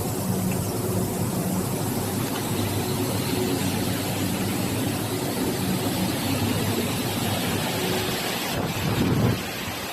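Air-cooled heat pump dryer running: a steady low hum under the rush of its fans moving air. The sound swells briefly near the end, then settles a little quieter.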